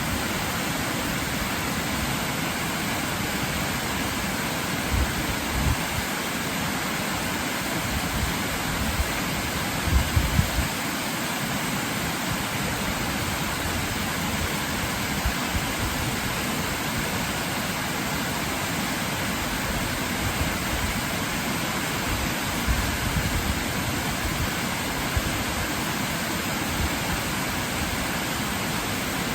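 Waterfall rushing in a steady, even roar of falling water, with a few brief low bumps, the loudest about ten seconds in.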